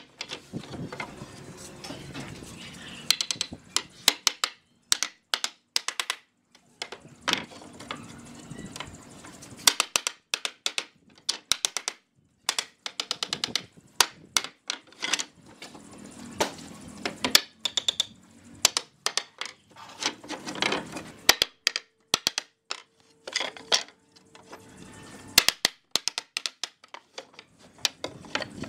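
Claw hammer driving nails into pine pallet-wood slats, in quick runs of sharp strikes with short pauses between them, along with the clatter of loose boards being laid down.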